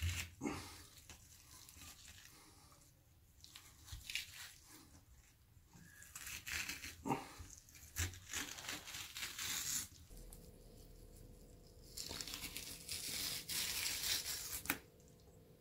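Knife scraping and tapping against a wooden cutting board as a whole sole is skinned, then the fish's skin tearing as it is pulled away from the flesh, a long ripping stretch near the end.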